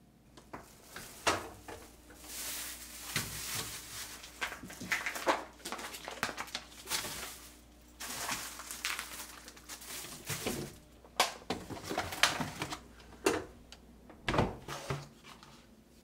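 Plastic food packaging crinkling and rustling as packs of meat are handled and put into a refrigerator, with small knocks throughout and a heavier thud near the end.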